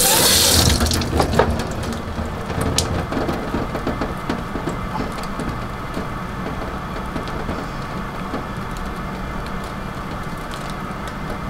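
Water from a kitchen tap splashing into a stainless steel sink for about a second at the start. Then a low steady hiss with small scattered clicks and soft handling sounds as a flame-scorched tomato's skin is peeled off by hand over the sink.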